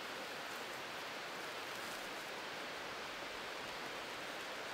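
Steady rushing of a nearby mountain creek, an even wash of water noise.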